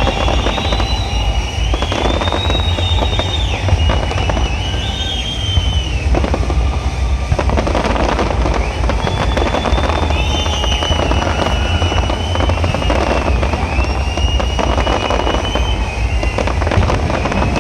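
Fireworks display: continuous bursts and crackling over a deep rumble, with high whistling glides coming and going.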